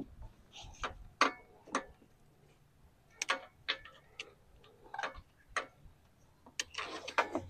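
About ten sharp, unevenly spaced clicks and ticks from hands working a tractor's plastic wiring harness and its zip ties loose.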